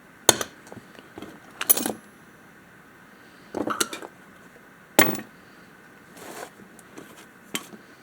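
Small loose metal parts clinking and rattling as they are handled and picked through by hand, in about six short separate bursts of sharp clicks.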